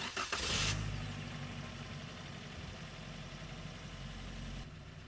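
Suzuki Jimny's 1.5-litre four-cylinder petrol engine idling steadily, after a short loud rushing burst at the very start. The engine note drops a little about four and a half seconds in.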